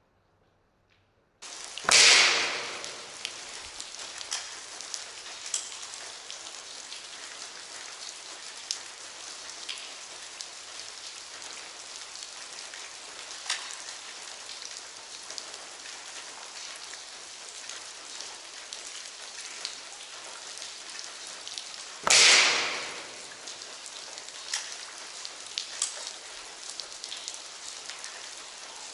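Two shots from a Crosman Quest 1000 break-barrel air rifle fitted with a gas spring, about twenty seconds apart. Each is a sharp crack that dies away over about a second. Between them is a steady hiss with scattered faint ticks.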